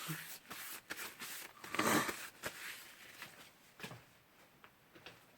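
Light clicks and rubbing from handling the metal parts of a disassembled pneumatic rivet nut tool and its air motor, with a brief rustle about two seconds in.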